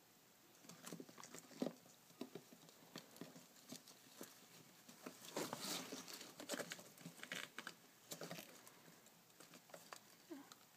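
Faint, irregular light clicks and rustles of a pet rat moving among hollow plastic ball-pit balls under a stroking hand, busiest around the middle.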